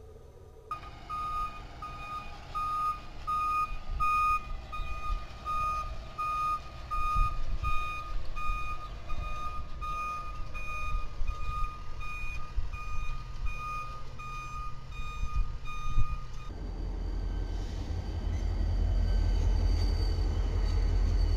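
A truck's backup alarm beeping steadily: single-pitched beeps repeating at an even rate, over a low background rumble. About 16 seconds in it cuts to a diesel locomotive rumbling past close by, its engine noise building toward the end.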